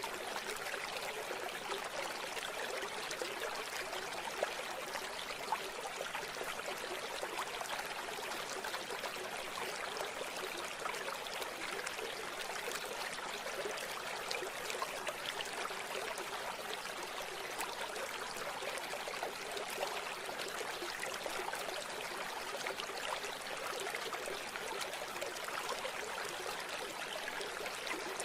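River water flowing steadily over stones, a continuous babbling rush with fine splashing and trickling detail.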